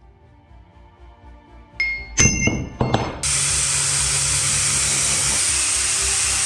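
Metal struck sharply three times, with a bright ring after the first, then a steady rushing hiss over a low hum starts about three seconds in and holds.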